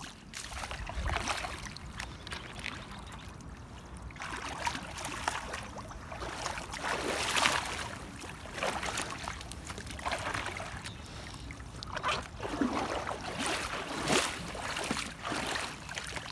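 Kayak paddle blades dipping and splashing in calm water, stroke after stroke, about one every second or two.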